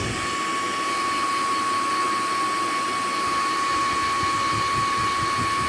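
Hair dryer running steadily: an even rush of air with a constant high whine from its motor and fan.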